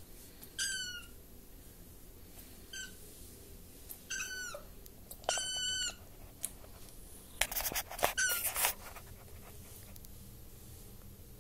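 Young kittens giving short, high-pitched squeaky mews, about half a dozen calls, several dropping in pitch at the end. A brief burst of scratchy noise comes around eight seconds in.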